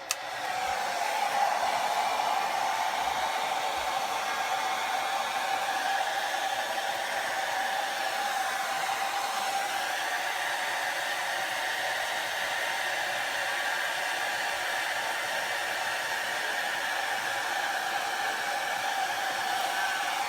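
Handheld hair dryer running steadily as it dries hair: a continuous rush of air with a steady motor whine in it.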